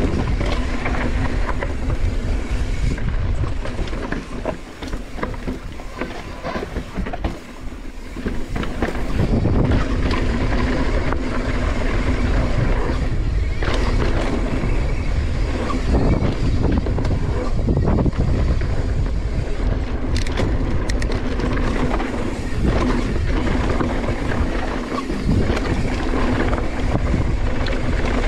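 Mountain bike descending a rough dirt trail: wind buffeting the action camera's microphone over tyre rumble and the clatter of the bike over bumps, louder from about nine seconds in.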